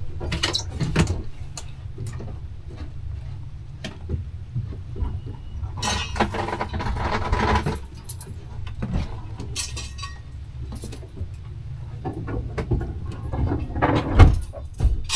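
Scattered clinks and knocks of small hard objects over a steady low rumble, with a burst of rushing noise about six seconds in and a loud cluster of knocks near the end.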